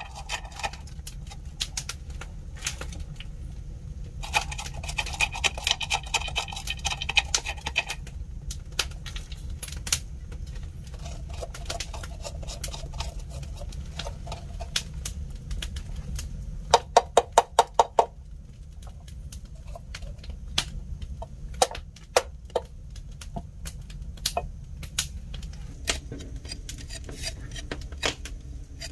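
A knife scraping the seeds out of a halved green papaya, with scattered clicks and taps of the blade against the fruit and a dense run of rapid scraping about four to eight seconds in. A little past halfway there is a quick run of about eight sharp knocks.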